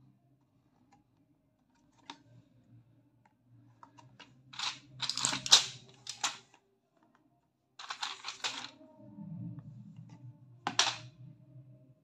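Cardboard tablet boxes and a foil blister strip being handled and shifted about: scattered clicks, two bursts of rustling in the middle, and a sharp click near the end.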